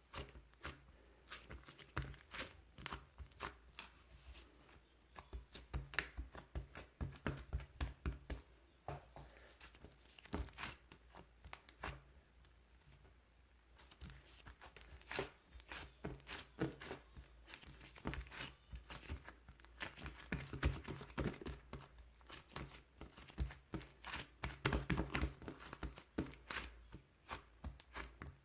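Crinkling, rustling and tearing of paper or plastic, handled close up in irregular clusters of small crackles, with a quieter lull about halfway through.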